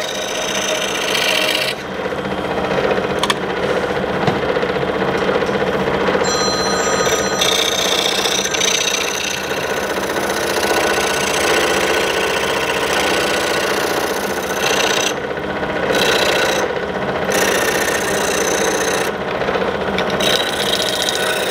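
Scroll saw running with a sandpaper strip clamped in place of the blade, the strip stroking up and down against the inside edges of a thin wood cutout: a steady machine hum under a continuous rasp of sandpaper on wood.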